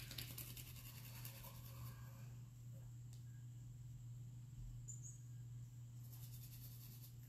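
Faint soft rubbing of hands rolling polymer clay between the palms, over quiet room tone with a steady low hum.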